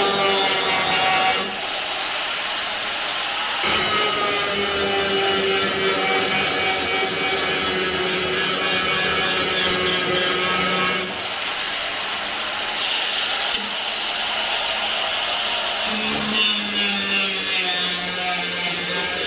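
A handheld power tool working the car's steel bodywork, running in long continuous passes with a steady whine over harsh hiss. It breaks off briefly a few times and restarts.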